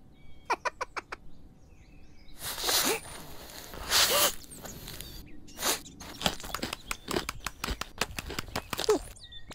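Crunchy eating sound effects for a clay animation character biting into a green pepper: a quick run of crisp crunches, then two loud breathy vocal bursts, then a long series of sharp crunching bites.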